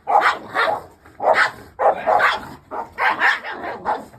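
Large dog barking over and over, short loud barks coming about twice a second.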